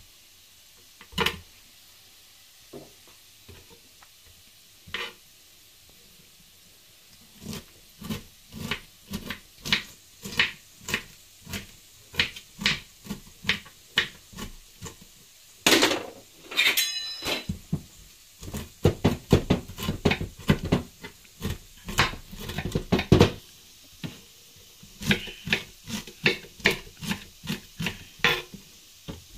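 Kitchen knife chopping shredded cabbage on a cutting board: a few scattered knocks, then steady chopping at about two strokes a second that quickens to a faster run in the middle. A brief scraping sound comes in just before the faster run.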